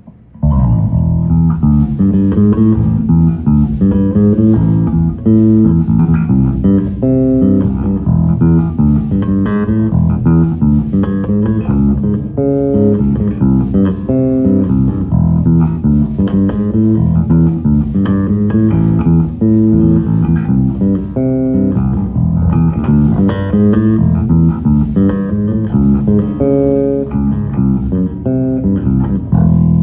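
Wolf S7-7 seven-string electric bass with Kalium strings, played through a Phil Jones bass amp set flat with no compression: a continuous run of notes starting about half a second in, with a note left ringing at the end.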